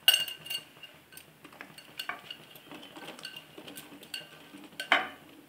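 Cauliflower florets dropped and tipped from a glass bowl into a pan of hot water, with clinks and knocks of the bowl and florets against the pan. The knocks come irregularly, a loud cluster just after the start and the loudest near the end as the bowl is tipped over the pan.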